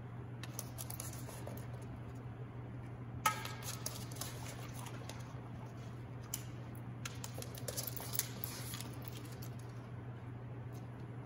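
Small terrier sniffing at metal outlet plates on a wall, searching for a hidden scent, with short clicks and light metallic jingles, the sharpest about three seconds in, over a steady low hum.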